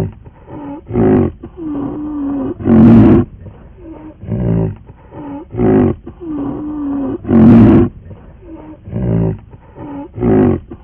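A large animal's loud roaring calls. A big roar comes about 3 s in and another about 7.5 s in, each followed by several shorter calls, the same sequence repeating like a loop.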